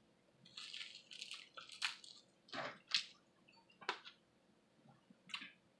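Fingers picking through a seafood boil in a foil pan: quiet wet squishing and crackling, with several sharp clicks about a second apart.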